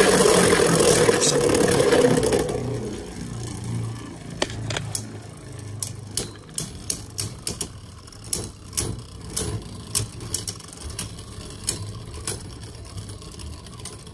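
Two Beyblade spinning tops, Vanish Fafnir and Choz Valkyrie, whirring and grinding across a plastic stadium floor. The sound is loud for the first two seconds or so, then drops to a quieter hum broken by a quick series of sharp clicks as the tops knock together and against the stadium wall.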